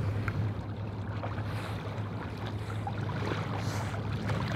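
Someone wading through shallow swamp water with light splashing and sloshing, over a steady low hum.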